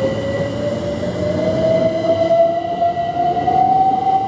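Class 387 Electrostar electric multiple unit accelerating away, its traction motors giving a steadily rising whine over the rumble of the train.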